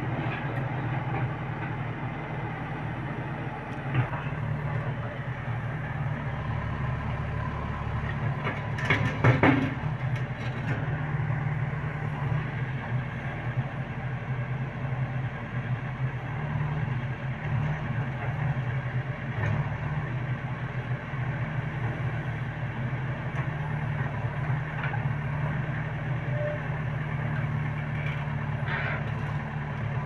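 JCB 3DX backhoe loader's diesel engine running steadily as the backhoe digs soil, with a cluster of sharp clicks and knocks about nine seconds in.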